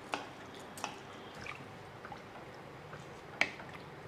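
Wooden spatula stirring soaked basmati rice, water and tomato masala in a stainless steel pressure cooker: faint liquid sloshing, with a few light knocks against the pot, the sharpest near the end.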